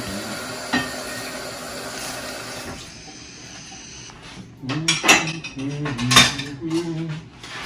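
Kitchen tap running while dishes are rinsed at the sink, then plates and cutlery clattering as they are handled and loaded into a dishwasher, with two sharp clinks in the second half.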